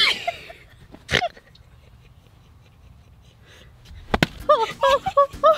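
A sharp knock or slap about four seconds in, after a mostly quiet stretch with one softer knock near the start. It is followed by a person's voice in short, rising-and-falling notes.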